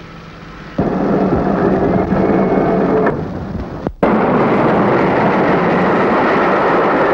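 Steam train running on the track, a loud steady rumble and clatter that starts abruptly about a second in. It breaks off briefly just before four seconds and then resumes, denser, to the end.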